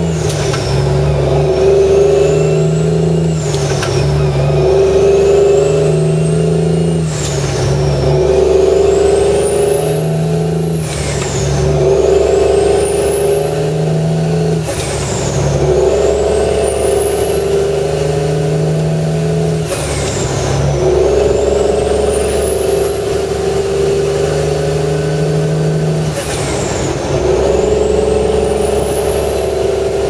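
N14 Cummins diesel in a 2003 Kenworth W900L, heard from inside the cab, pulling up through the gears of a 13-speed transmission. The turbo whistle rises in pitch as the engine pulls in each gear and falls sharply at each of about seven shifts. Each gear is held a little longer than the last.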